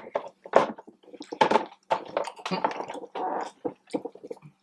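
Close-up, wet chewing and mouth sounds of people eating sauced boneless chicken wings: irregular smacks, squelches and small clicks, over a faint steady hum.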